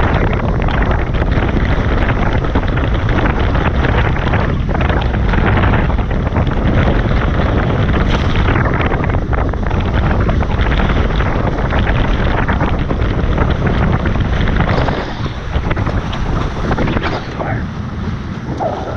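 Wind buffeting the microphone, with water rushing past the hulls of a Tornado catamaran under sail. A loud, steady rush that eases a little about fifteen seconds in.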